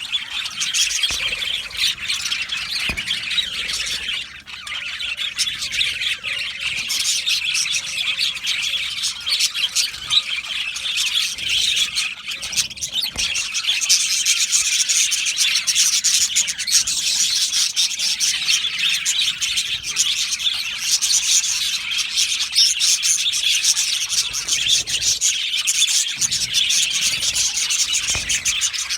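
A colony of budgerigars chattering and chirping together, a dense, continuous warble of many overlapping calls, a little louder in the second half.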